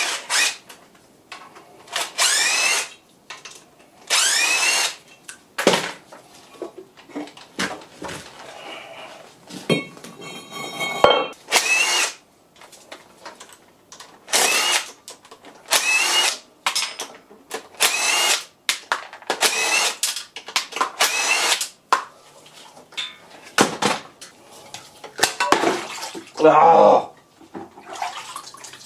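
Power drill/driver run in repeated short bursts, its whine rising in pitch as the motor spins up each time, undoing bolts at the flywheel end of a Ford 1.0 EcoBoost engine.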